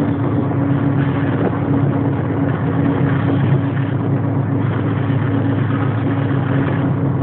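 Locomotive running at a steady speed, heard from its cab window: a steady engine drone with rumble and rushing noise from the moving train.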